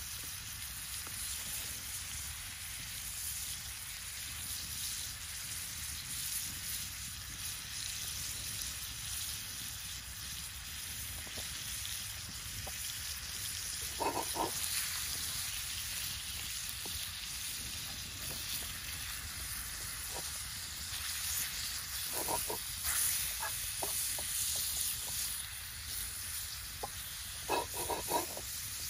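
Ground beef frying in a cast iron skillet over a wood fire, a steady sizzle. A few brief knocks come about halfway through and again near the end.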